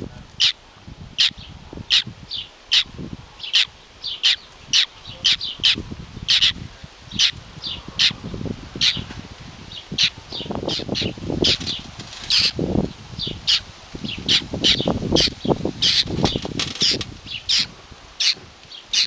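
Baby bird calling over and over with short, sharp, high-pitched cheeps, about one or two a second.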